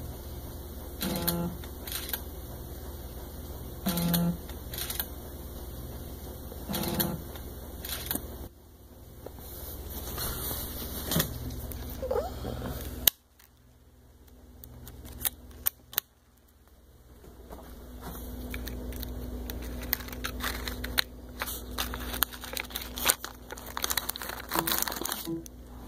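Automated photogrammetry rig cycling through its shots: a short motor whir comes about every three seconds, with small camera clicks between them. Then handling noise and a dense run of small plastic clicks as the camera's SD card is taken out.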